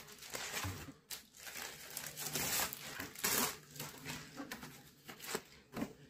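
Clear plastic zip bag crinkling and paper booklets rustling as the booklets are pulled out and handled, in irregular bursts, loudest about three seconds in.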